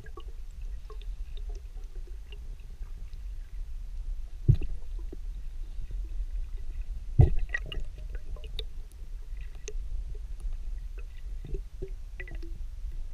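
Underwater sound picked up through a diver's camera housing: a steady low rumble with scattered small clicks and two louder sharp knocks, a few seconds apart near the middle, as the spear and line are handled around a speared tilapia.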